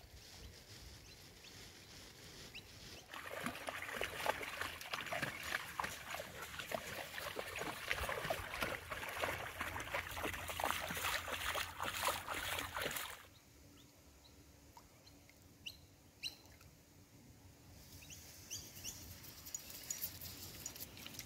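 Dogs wading and running through shallow river water, a dense irregular splashing for about ten seconds, after which it drops away to quiet with a few faint ticks.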